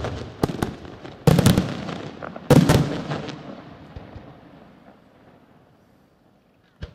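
Aerial firework shells bursting overhead: sharp cracks, then two loud bangs about a second apart, each trailing off slowly, before the display falls quiet and a small pop sounds near the end.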